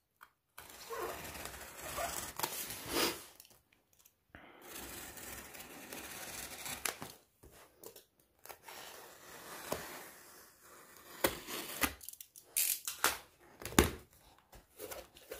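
Packing tape on a cardboard box being slit with a utility knife and torn off, with the cardboard rustling as the flaps are pulled open. Long scraping hisses in the first half give way to a run of sharp rips and cracks in the last few seconds.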